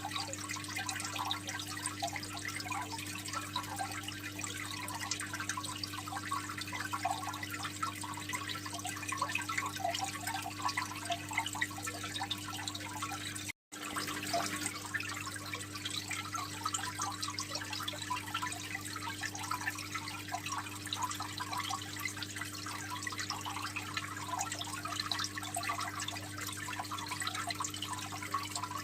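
Water trickling and splashing in a home aquarium, a continuous patter of small drips and bubbles with a steady low hum beneath. The sound cuts out for a moment about halfway through.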